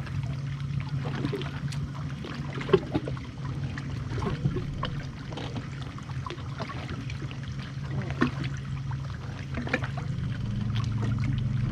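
A fishing boat on the water: small waves lapping and trickling against the hull over a steady low hum, with scattered small clicks and knocks. The hum grows a little louder and higher near the end.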